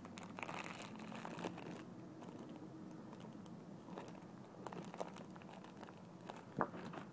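Faint crinkling and rustling as a cupcake squishy toy is handled, followed by scattered light clicks and taps.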